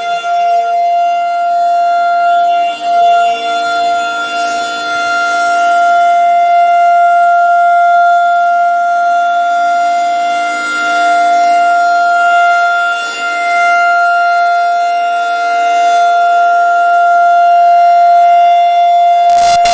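Federal Signal 2001-DC outdoor warning siren sounding a steady single tone during its scheduled test, with slight swells and dips in loudness.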